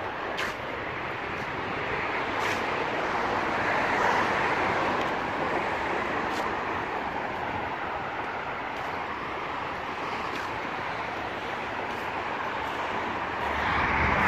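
Steady street noise with a hiss of traffic and faint taps scattered through it, swelling near the end.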